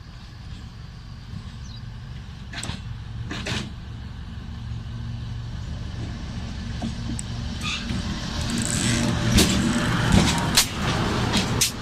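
A train approaching, its low rumble growing steadily louder, with a couple of sharp knocks a few seconds in and rapid clanks of wheels over rail joints crowding in near the end.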